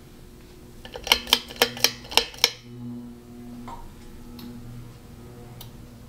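Several ceiling fans running with a steady hum, interrupted about a second in by a quick run of about six sharp, ringing clicks that stop after a second and a half.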